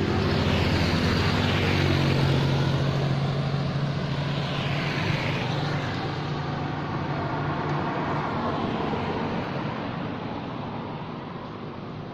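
A motor vehicle passing on the road: a steady engine hum with tyre noise that builds over the first couple of seconds and then slowly fades away.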